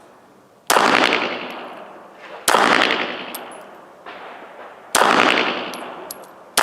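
Gunshots fired one at a time, three about two seconds apart with a fourth starting right at the end. Each sharp report dies away slowly in a long echo.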